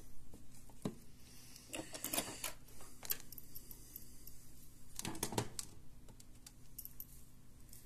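Scattered small clicks and taps of small parts and tools being handled on a workbench, with a louder clatter about five seconds in.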